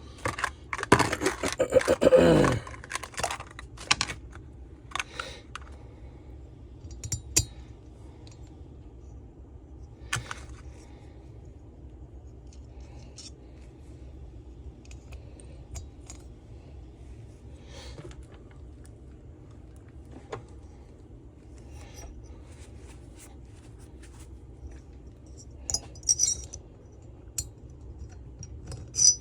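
Small metal parts and hand tools clinking and scraping on a workbench during hand reassembly of a two-stroke leaf blower's bottom end. A flurry of clinks and scrapes at the start, then scattered single clicks, and a brief metallic jingle near the end.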